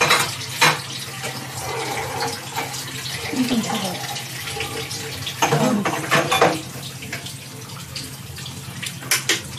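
Steady noise of running water, with a few clicks and brief low voices.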